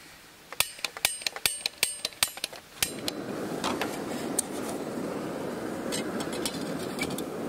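Adalov camping stove on Jetboil canister gas: a quick run of about a dozen igniter clicks, then the gas burner catches about three seconds in and burns with a steady rushing hiss. A few knocks are heard as the pot is set on top.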